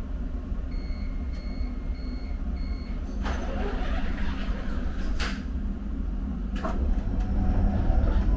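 Subway train's door-closing warning: four short high beeps in the first three seconds over a steady low rumble, then three sharp knocks.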